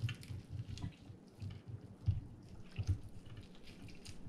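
Wet, irregular eating sounds of deep-fried quail: chewing thuds with small clicks and smacks as the meat is worked off the bones.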